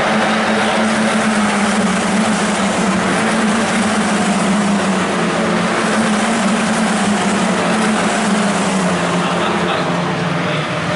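Formula 4 race car engine, a 1.4-litre turbocharged four-cylinder, running at speed down the straight with a steady note that drops in pitch about nine seconds in.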